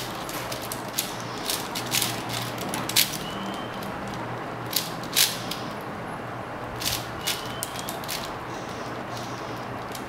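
A 4x4 speed cube being turned rapidly by hand: quick, irregular plastic clicks and clacks as its layers snap round.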